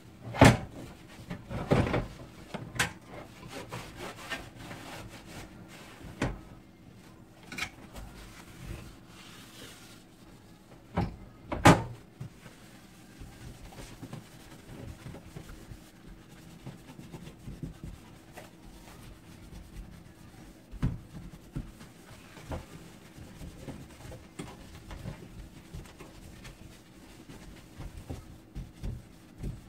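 Paper towel rubbing and wiping over a stainless-steel gas cooktop to clean off grease, with a few sharp knocks against the metal in the first half, the loudest about twelve seconds in.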